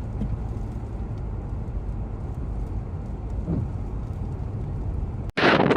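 A steady low rumble of outdoor storm footage, then an abrupt cut about five seconds in to loud, gusty wind blowing across the microphone.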